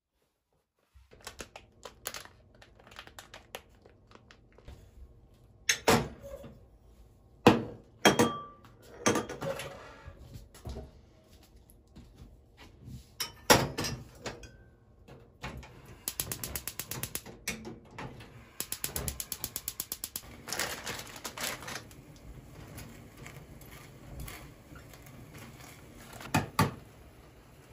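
Household objects being handled and set down: scattered knocks and clacks, the sharpest a few hard knocks early on and near the middle, with two stretches of rapid, even clicking in the second half.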